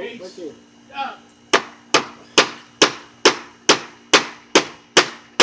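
A hammer driving a nail into a wooden fence board: a steady run of about ten sharp strikes, roughly two a second, starting about a second and a half in.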